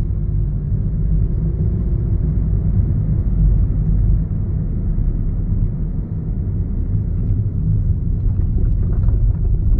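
Steady low rumble of a car driving on an asphalt road, heard inside the cabin: engine and tyre noise.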